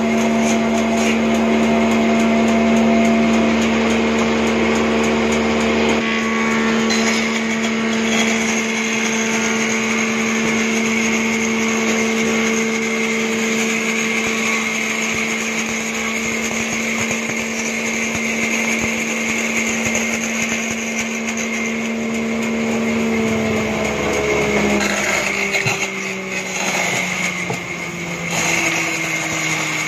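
Band saw running with a steady hum, its blade hissing as it cuts through a wooden plank. Over the last few seconds the hum drops in pitch.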